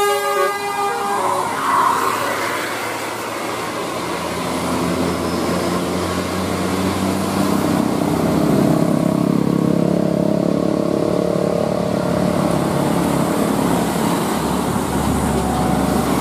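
A bus's multi-tone telolet horn melody stops about a second in. Then the bus's diesel engine runs over road noise, slowly rising in pitch as the bus picks up speed.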